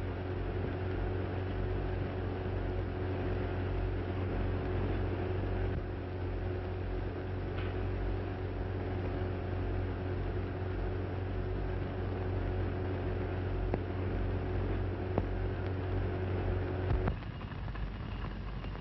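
Steady hum and hiss of an early 1930s optical film soundtrack, with a few faint clicks. The hum's tone shifts at a cut near the end.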